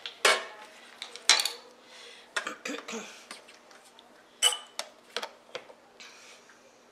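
Bread-machine baking pan and its metal wire handle being handled and set into the bread machine: a run of sharp clicks and metal clanks, the loudest a brief ringing clink about four and a half seconds in.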